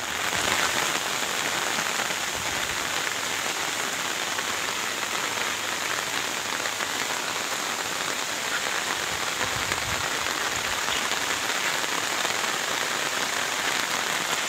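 Heavy rain falling steadily onto standing floodwater, an even hiss with no letup.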